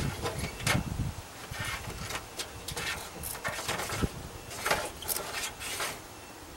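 A hand tool working at an old navigation-light socket on the boat deck: a run of short scrapes and rattles, with a single knock about four seconds in.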